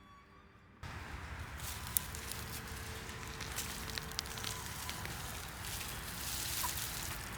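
Faint music cuts off under a second in, giving way to a steady crackling, rustling outdoor noise with scattered sharp clicks.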